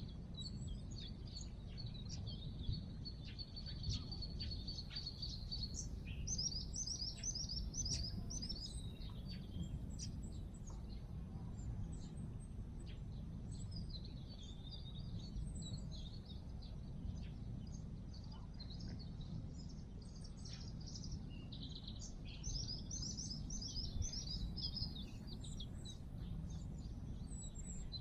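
Several small songbirds singing, with repeated trills and chirps, over a steady low background rumble.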